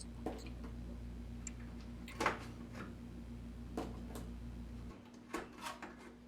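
Faint plastic clicks and knocks, about five spread over several seconds, the loudest a little past two seconds in, as RAM module retaining clips are released and memory sticks are lifted out of a Mac Pro's memory tray. A steady low hum runs underneath and drops away about five seconds in.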